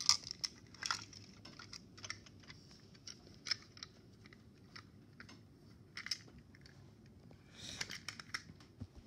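Plastic TrackMaster toy train coaches and wagons clicking and clacking against each other as they are handled, a scatter of light irregular clicks with a short scrape near the end.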